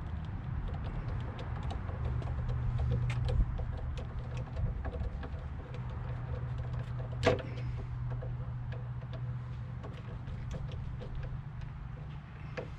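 Small clicks and metal clinks of an RV door latch and screws being handled and fitted, with one sharper ringing metal clink about seven seconds in, over a steady low hum.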